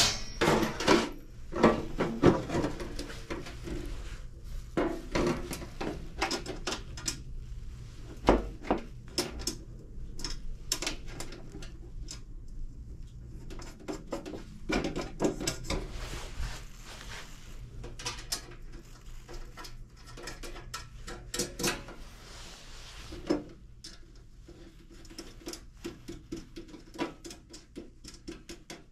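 Hands handling metal parts, tubing and wiring inside an espresso machine's stainless frame: irregular clicks, taps and light metallic clatter, over a faint steady low hum.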